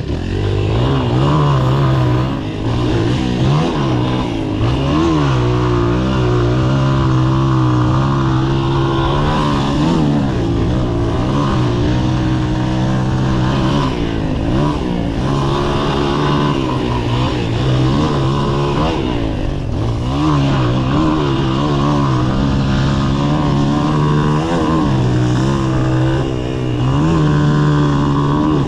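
Honda XL125S's single-cylinder four-stroke engine revving hard under load as the bike is ridden off-road, its pitch climbing and dropping over and over with throttle and gear changes.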